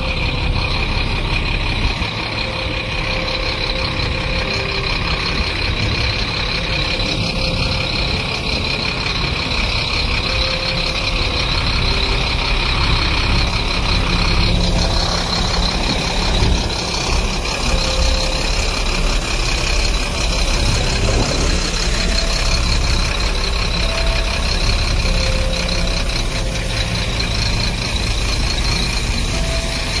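Heavy water tanker truck's diesel engine running steadily as the truck moves slowly along, spraying water to wet a graded road surface.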